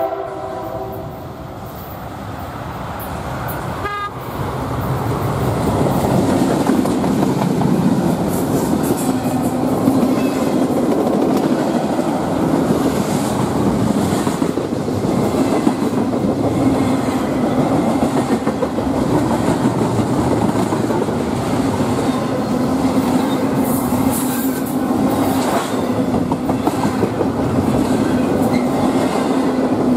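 A freight train's horn cuts off at the start, then a CSX diesel-led double-stack intermodal freight passes close by, the noise building over the first few seconds into a steady rumble and clatter of wheels on rail as the well cars roll past.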